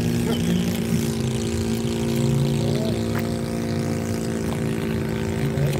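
Model aircraft engine idling steadily, holding an even pitch.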